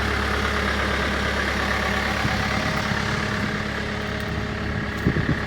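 Case 580N backhoe loader's diesel engine running steadily, with a couple of short knocks near the end.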